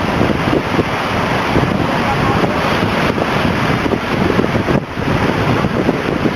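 Heavy surf from a hurricane breaking and washing on the shore, with strong wind buffeting the microphone in a constant rush.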